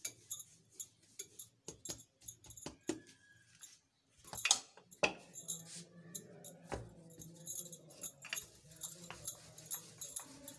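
Irregular taps, knocks and handling noise of hands working a ball of bread dough on a floured stone counter, with a faint steady low hum behind from about halfway.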